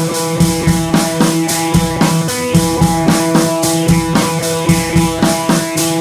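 Intro music: a drum kit keeping a steady beat under guitar and held tones.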